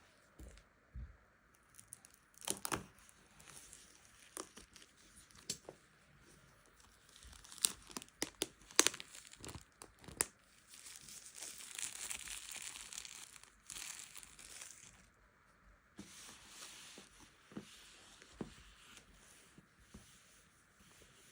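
Smartphone packaging being opened by hand: plastic wrap and paper crinkling and tearing, with scattered sharp clicks and snaps. A close cluster of snaps comes about eight to ten seconds in, then a longer tearing rustle follows.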